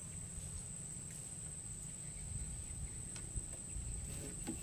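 An insect's steady high-pitched drone over a low rumble, with a few faint clicks.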